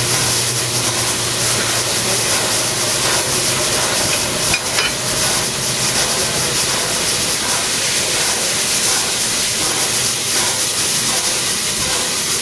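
Steam locomotive 60163 Tornado hissing steadily with escaping steam. A low hum fades out in the first few seconds, and there is a brief bump just under five seconds in.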